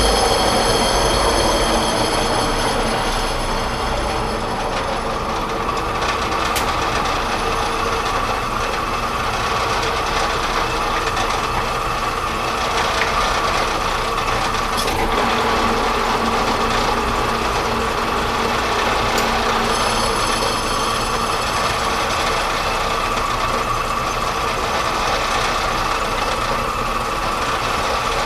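Metal lathe running and turning down the outside diameter of a metal part: a steady machining noise with a high whine at the start and again about two-thirds of the way through.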